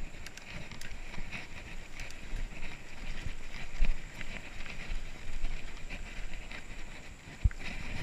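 Mountain bike rolling over a dirt trail: a steady rumble from the tyres and rattling of the bike, with two sharp knocks from bumps, one about halfway and one near the end.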